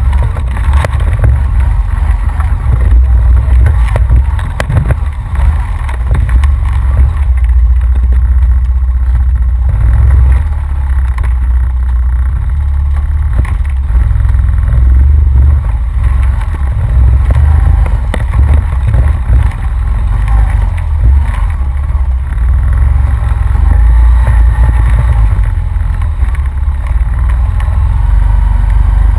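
Honda Rancher ATV running steadily along a rough dirt trail, heard from a camera on its front rack: a deep, constant rumble with frequent knocks and rattles from the bumps.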